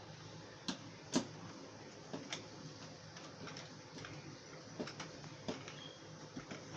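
Irregular sharp clicks and taps, the loudest a little over a second in, over a faint steady hum: small parts and tools being handled during assembly of a CNC laser engraver.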